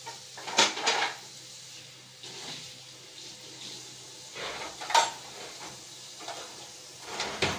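Kitchen dishes and cutlery clattering: a few short knocks and clinks of plates and utensils being handled and set down, loudest near the start and again partway through.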